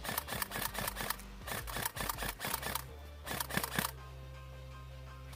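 Background music with a fast, clicky percussion beat over steady bass notes; about four seconds in the percussion drops out, leaving sustained low notes.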